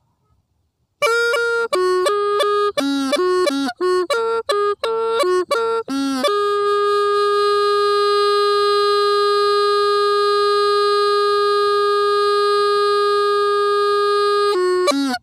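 Hmong raj les pipe playing a slow, mournful solo. After a second of silence comes a quick run of short notes with bending pitches, then one long held note for about eight seconds, then a few quick notes before it stops.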